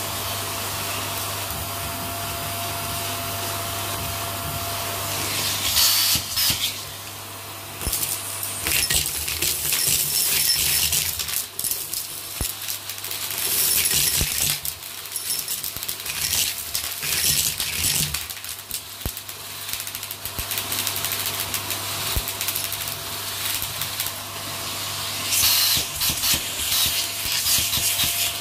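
Vacuum cleaner running steadily with a constant hum and whine. From about six seconds in, small hard debris (plastic beads, sequins, pins and grit) sucked up through its hose rattles and clatters in repeated bursts, loudest around six, ten and fourteen seconds and again near the end.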